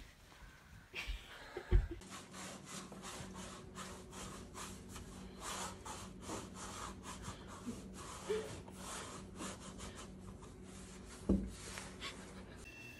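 A pet raccoon scuffling and wrestling with a person's sleeved arm on the floor: quick scratchy rubbing of paws and fur against cloth, with two sharp thumps, about two seconds in and near the end.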